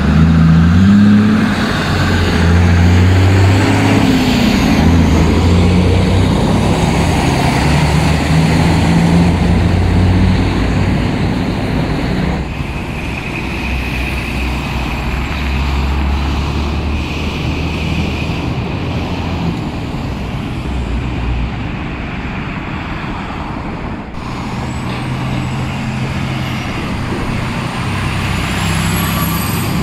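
Heavy diesel trucks driving past in city traffic: a convoy of dump trucks, then a tractor-trailer hauling a lowboy, then a roll-off truck. The engines rise and fall in pitch as they pull away and shift, over road and traffic noise, and the sound changes abruptly about 12 and 24 seconds in.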